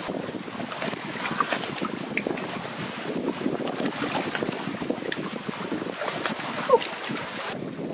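Creek water running and splashing over rocks in a steady rush, with small splashes.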